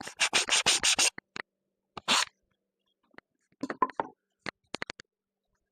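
Cut cedar picket pieces being handled and set down: a quick run of sharp wooden clicks and knocks, a brief scrape about two seconds in, then a few scattered clicks.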